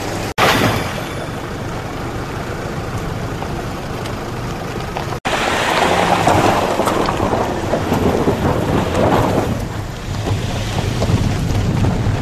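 Wind rumbling on the microphone over off-road SUVs driving slowly on a rocky gravel trail. The sound drops out for an instant twice, about half a second in and again about five seconds in.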